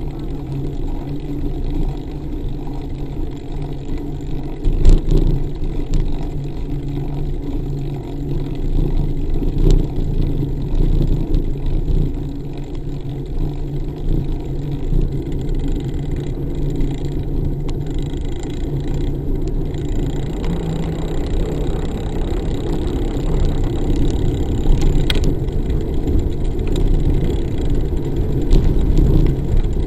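Wind and road rumble picked up by a camera mounted on a moving bicycle: a steady low rumble, with a few brief knocks from bumps in the road.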